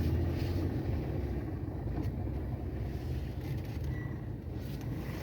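Steady low rumble of a moving road vehicle, with a few faint clicks and rattles.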